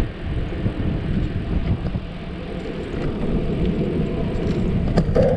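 Wind buffeting the microphone of a camera carried on a moving bicycle: a steady low rumble with irregular gusts. A few light clicks come near the end.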